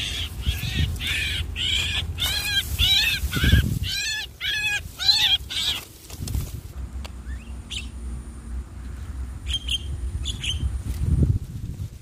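Javan mynas calling: a fast run of repeated harsh, arching calls for about the first six seconds, then a few short calls near the end. A low rumble of wind or handling noise runs underneath, with a thump about three and a half seconds in.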